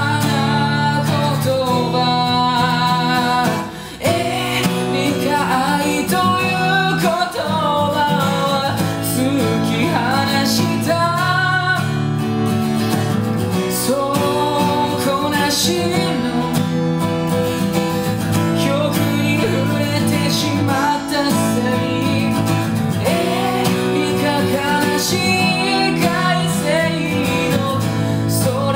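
A man singing in Japanese to his own strummed acoustic guitar, with a short break in the strumming about four seconds in.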